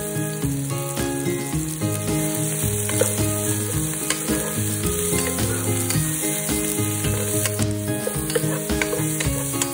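Chopped green onions and minced aromatics sizzling and crackling in hot oil in a nonstick pot, with a wooden spoon stirring them, over background music.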